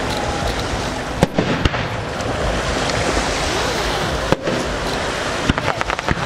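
Aerial fireworks shells bursting over a steady background noise. There are sharp bangs about a second in, a loud one past the four-second mark, and a quick run of cracks near the end.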